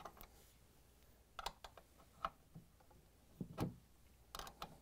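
A handful of faint, separate clicks and ticks from two half-inch wrenches on a brass water-line compression fitting as it is loosened.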